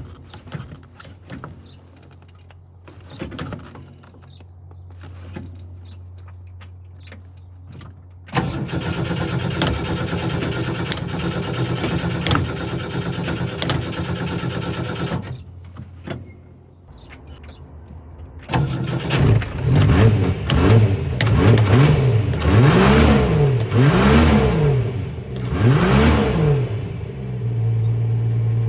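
Hard start of a flooded car engine: faint clicking at first, then a loud stretch of cranking or rough running for about seven seconds that cuts off. The engine fires again, is revved three times, pitch rising and falling each time, then settles to a steady idle near the end.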